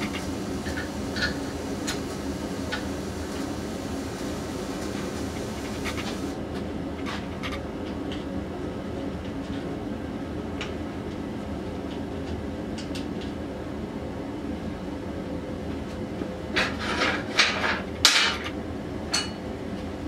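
A steady low mechanical hum with a few light metallic clicks. About seventeen seconds in comes a quick run of metal clanks and taps as hand tools work on an ATV's rear axle and sprocket carrier.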